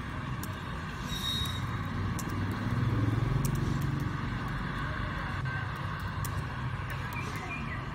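Steady hum of street traffic, with a motor vehicle passing and growing louder about three seconds in. Faint scattered clicks of laptop keys being typed run through it.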